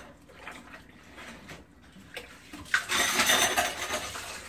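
Dishes being washed by hand in a kitchen sink: faint clinks of plates, then a sharp clink a little under three seconds in and the steady rush of water running over the dishes.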